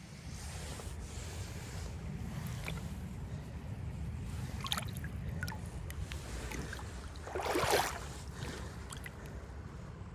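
Wind buffeting the microphone as a steady low rumble, with a few small clicks and a short louder rustling noise about three-quarters of the way through.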